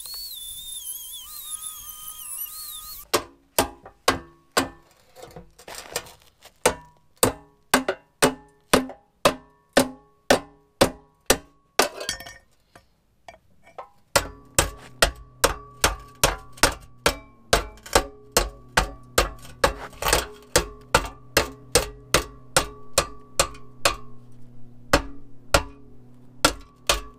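Hammer blows on the rusty steel pipe end of an old exhaust rear silencer, two to three a second with metallic ringing, pausing for a couple of seconds midway. A high whine from a rotary tool cutting the pipe runs for the first three seconds.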